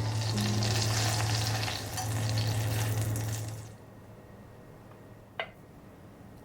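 Food sizzling in a hot frying pan, with a low steady hum under it. The sizzle cuts off sharply a little under four seconds in, leaving a quiet stretch with one light click.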